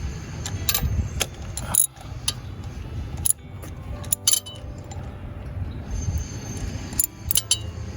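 Ratchet wrench clicking in short, irregular strokes while tightening a new spark plug into its cylinder, over a low steady hum.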